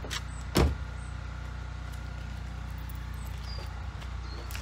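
A car engine idling steadily, with a single thump about half a second in.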